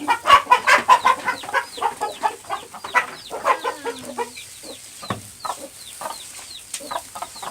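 American Buckeye chickens: chicks peeping in quick, high, falling chirps, several a second, under hens clucking. The clucking is loudest in the first second or so.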